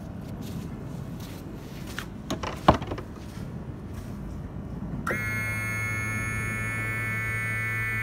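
A few clicks and knocks, the sharpest about two and a half seconds in, then a steady buzzing electronic tone starts about five seconds in and holds.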